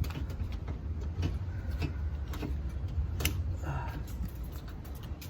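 Scattered light clicks and knocks of parts being handled and fitted inside a car door during a door latch actuator repair, with one sharper knock about three seconds in, over a steady low rumble.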